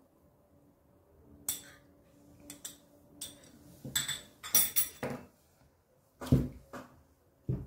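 A metal spoon clinking and tapping against a glass bowl and a small glass spice dish, a string of sharp clinks over the first five seconds. Two louder, duller knocks follow near the end as things are set down on a wooden table.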